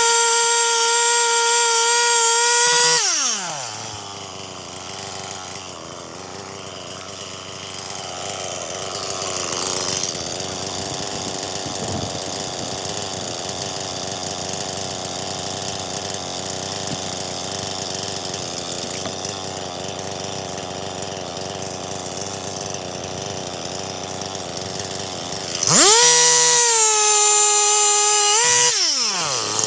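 Stihl MS 261 C-M two-stroke chainsaw held at full throttle at a steady high pitch, then released about three seconds in, its pitch falling away. A steadier, quieter engine hum runs through the middle. Near the end the saw revs up to full throttle again for a few seconds and drops back down.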